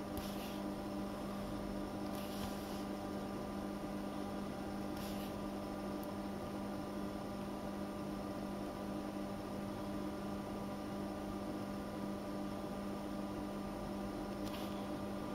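Steady low electrical hum, a drone with several higher tones stacked above it, with a few faint soft ticks.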